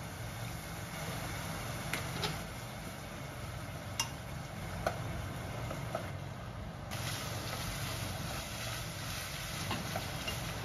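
Food frying in a pot on a gas stove over a steady low hum, with a few sharp clinks of kitchenware against the pot in the first half. From about seven seconds in, the sizzling hiss grows louder.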